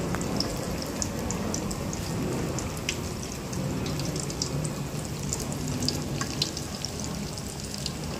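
Battered bananas deep-frying in hot oil in a wok: a steady sizzle with scattered crackling pops.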